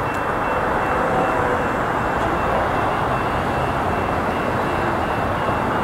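Steady distant rumble of an approaching diesel freight train led by a BNSF GE ES44C4 locomotive, still some way off.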